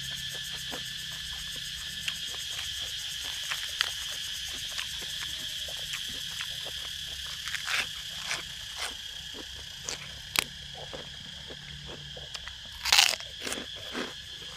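Close-up eating: irregular crunching bites and chewing of spicy squid-tendon salad with fresh raw vegetables, the loudest crunches near the end, over a steady chirring of insects.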